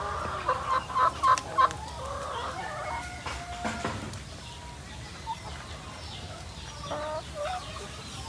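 A flock of layer chickens clucking and calling: a quick run of short, loud clucks in the first couple of seconds, then quieter drawn-out calls, with a few more clucks near the end.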